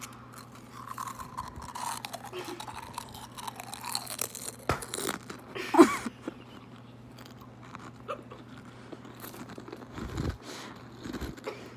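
Potato chip being crunched and chewed right at the microphone, with irregular crisp crackles and the loudest crunch about six seconds in.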